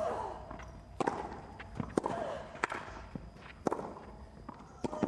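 Tennis ball struck back and forth on a clay court: sharp racket hits about once a second, starting with the serve, some followed by a player's short grunt.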